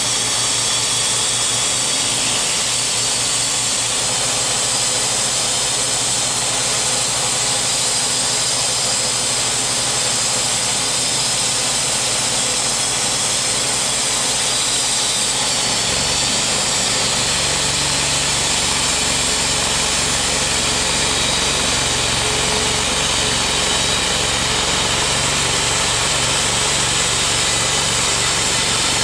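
Timberking B-20 portable bandsaw mill running steadily at the end of a log. About halfway through, its sound deepens and stays that way, and by the end the band blade is sawing through the white oak log, throwing sawdust.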